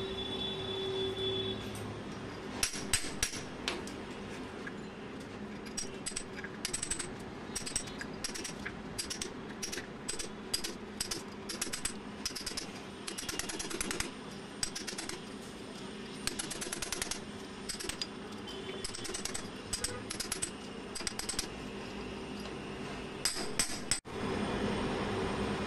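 Runs of sharp taps and clicks, hard tools and bits of broken mortar knocking, as old mortar and debris are chipped and picked out of a floor-drain opening in a tiled floor, over a low steady hum. Near the end the tapping stops and a steadier noise takes over.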